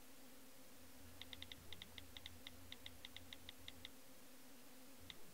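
Smartphone keyboard key-tap clicks as a text message is typed: a quick, uneven run of faint ticks lasting a couple of seconds, then a single tick near the end.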